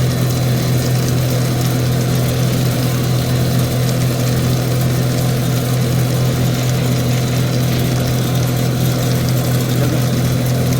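Plastic-recycling extruder with a 55 mm screw, driven by a 20 HP electric motor, running with a steady low hum.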